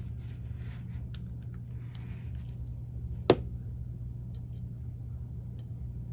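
A few faint clicks and one sharp tick about three seconds in, from a glass oil dropper being handled at a cassette deck capstan motor's brass bushing during oiling, over a steady low hum.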